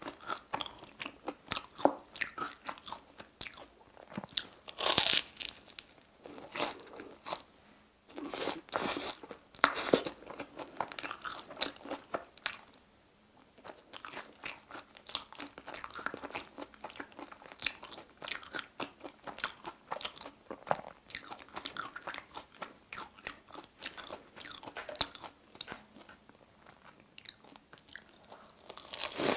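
Crunching and chewing of a deep-fried corn dog coated in potato cubes, picked up close by a clip-on microphone, with louder crunchy bites about five and ten seconds in.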